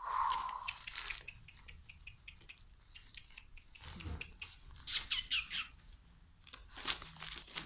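American Hairless Terrier puppies playing and squealing: short high-pitched squeaks and yelps, loudest about five seconds in and again near seven seconds, among small clicks and rustles from their scuffling on the floor.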